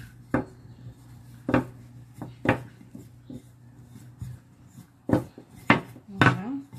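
Small wooden rolling pin rolling out a round of bun dough on a silicone mat, knocking sharply against the table about six times at irregular intervals.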